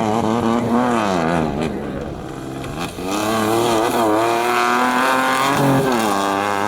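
Competition vehicle's engine at high revs, its pitch rising and falling repeatedly as it accelerates and comes off the throttle, with a deeper dip in revs about two to three seconds in.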